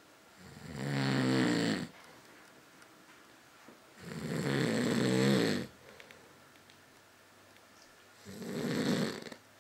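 Snoring: three long, low, buzzing snores about four seconds apart, each lasting one to two seconds.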